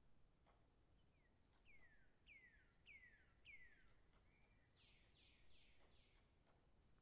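Very faint bird song: four clear whistled notes, each sliding down in pitch, about two a second, then a few rougher, buzzier notes near the end.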